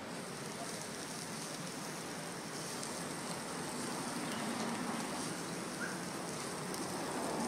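Hot stones of a Samoan umu (earth oven) sizzling and hissing steadily as they steam, with food in coconut shells being set on them.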